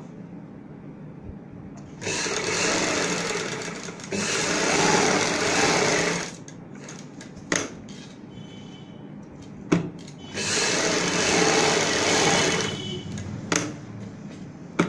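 Black domestic sewing machine stitching in three short runs of about two seconds each, stopping between runs, with a few sharp clicks in the pauses.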